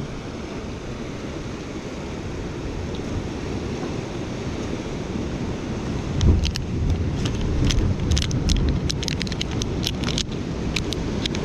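Wind buffeting the microphone over the wash of surf, with a gust about six seconds in. A run of small sharp clicks and taps fills the second half.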